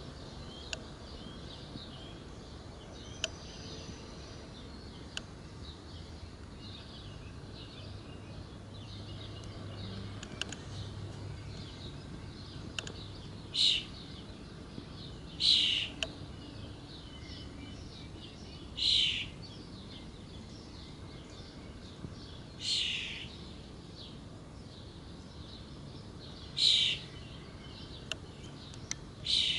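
Wild birds chirping throughout. In the second half one bird gives a loud, noisy call six times, each about half a second long and a few seconds apart.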